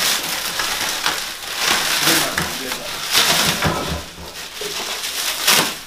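Clear plastic wrapping crinkling and rustling as hands pull it off a newly unboxed machine, in uneven bouts of handling noise.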